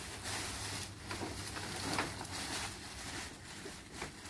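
Thin black plastic bag rustling and crinkling in uneven swells as it is pulled down over a bundle of split bamboo poles.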